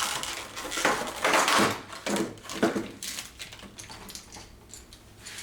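A metal guide-rail clamp being handled against the aluminium track-saw rail: a few scrapes and clanks in the first three seconds, then quieter handling.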